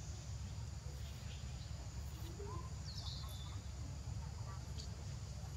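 Outdoor ambience: a steady low rumble and a high hiss, with a short high falling chirp about three seconds in.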